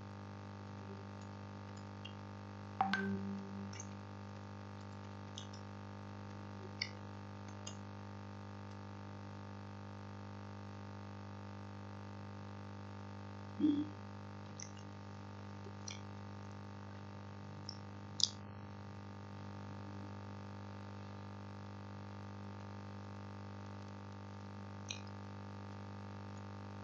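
Steady electrical hum from the recording chain, with a few faint scattered clicks and taps; the sharpest click comes about three seconds in.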